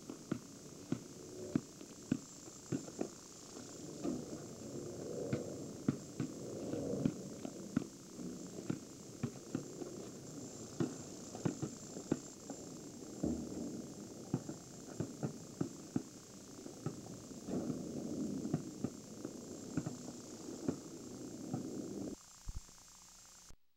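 Basketball being dribbled on asphalt, sharp bounces in an uneven beat about once or twice a second, with sneaker footsteps scuffing between them. The sound drops away abruptly near the end.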